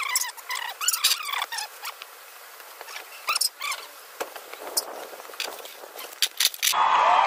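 Quick high chirps of small birds with scattered light clicks. Near the end, electronic outro music comes in, louder than the chirping.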